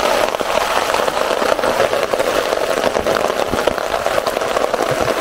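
Heavy rain falling, a steady dense patter of many small drops.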